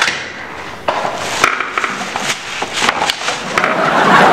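Irregular sharp knocks and clatters, then a steady rushing noise that swells near the end.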